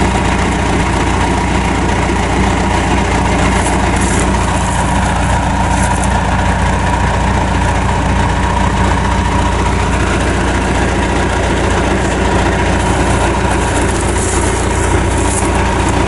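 John Deere 310 backhoe's diesel engine idling steadily.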